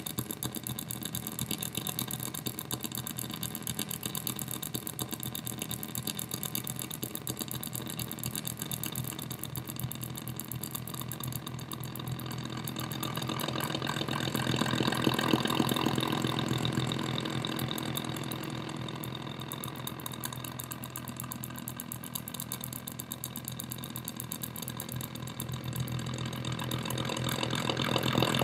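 Electronic noise from a solar cell picking up the flicker of strobe lights, sent through a Boss DD-7 delay pedal and a distortion pedal to an amplified speaker: a rapid, buzzing pulse. It swells about halfway through, eases off, and builds again near the end.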